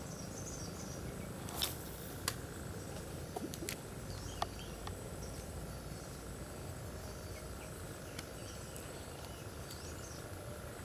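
Outdoor ambience of faint, scattered bird chirps and a steady high insect drone over a low rumble, with a few sharp clicks in the first half, the loudest about two seconds in.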